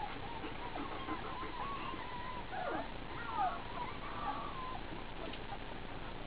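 Four-week-old German Shepherd puppies whining: a string of wavering whimpers, a few sliding down in pitch, dying away about five seconds in.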